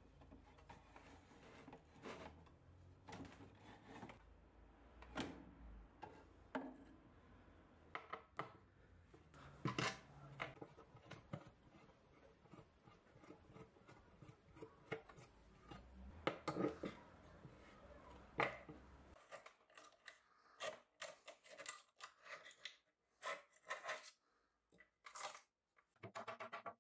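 Faint hand-tool work on old wood: a screwdriver turning screws out of a small metal plate, with scattered clicks, creaks and scrapes. Later the background goes quiet and a quicker run of sharp clicks and taps follows.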